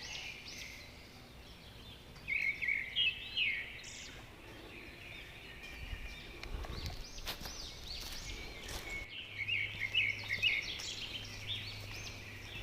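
Small birds calling and singing in woodland: quick high chirps that come in busy bursts a couple of seconds in and again near the end.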